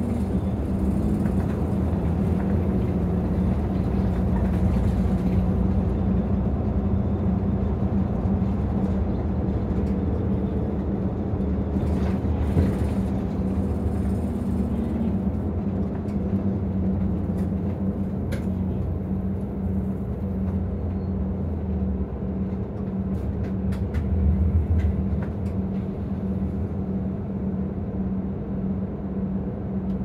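Inside a Nissan Diesel ADG-RA273MAN city bus under way: the diesel engine and drivetrain drone steadily, with road noise and a few short rattles from the cabin fittings. The engine note swells briefly about two-thirds of the way through.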